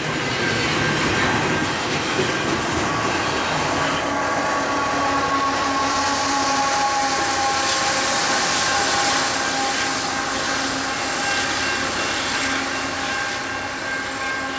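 A double-stack intermodal freight train rolls past, its wheels running on the rail with steady squealing tones. A GE Evolution Series (GEVO) diesel locomotive, running as a distributed power unit, passes about eight seconds in, and the noise grows brighter and harsher as it goes by.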